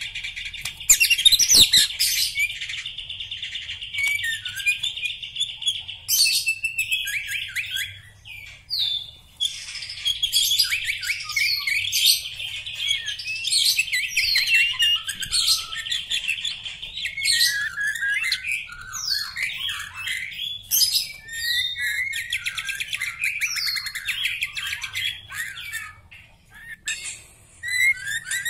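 Caged black-legged white-rumped shama singing a long, varied song of clear whistles, slurred glides and fast trills, with short pauses about eight seconds in and near the end.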